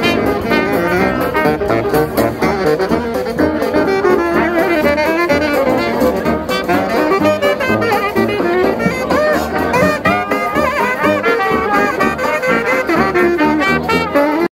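Live street brass band playing a lively jazz tune: trumpet and saxophone carrying the melody over a sousaphone bass line.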